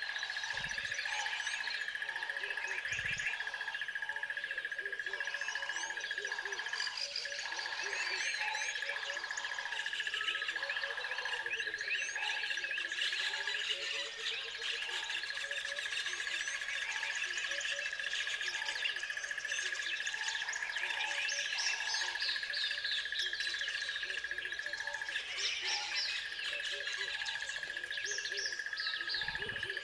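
A dense chorus of songbirds chirping and twittering over a steady high-pitched trill, with short lower calls repeating about once a second: a natural outdoor soundscape.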